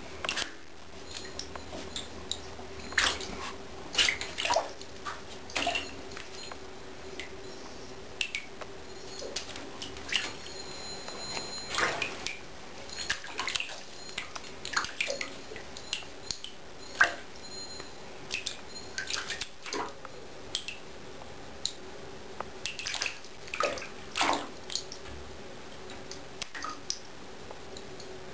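Savannah cat's paws splashing and slapping in shallow water in a bathtub as it swats at goldfish: irregular short splashes and taps, some in quick clusters.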